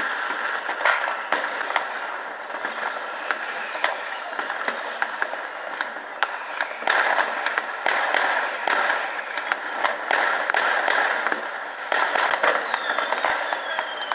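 Fireworks going off all around: many sharp bangs and crackles, with a run of four or five falling whistles about two to five seconds in and another falling whistle near the end.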